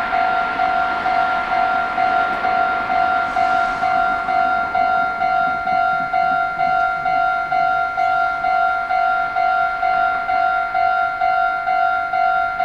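Japanese level-crossing warning bell ringing its electronic "kan-kan" tone, about two strikes a second, steady throughout. Under it a rumble fades over the first few seconds.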